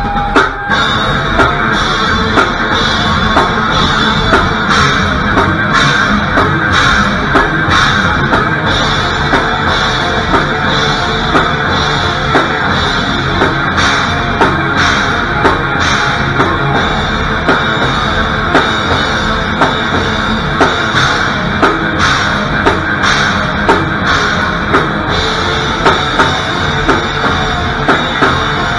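Live heavy metal band playing loud: distorted electric guitars and bass over a drum kit, with sharp drum and cymbal hits at a regular pulse.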